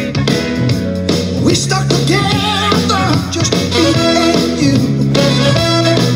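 Line-dance song playing: singing over guitar, with a steady beat.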